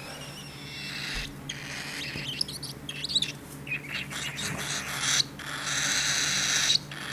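Cockatiel chick calling: short high chirps, then a longer raspy call near the end, typical of a chick begging while being hand-fed.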